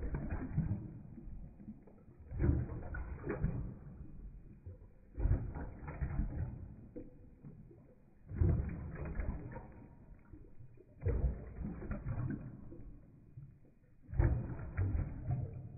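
A Rottweiler lapping water from a ceramic bowl, slowed down: a low, drawn-out slosh of tongue and water about every three seconds.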